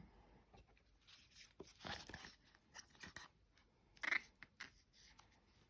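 Faint handling sounds of a paper guidebook and cardboard deck box: scattered light clicks and short rustles, the louder ones about two and four seconds in.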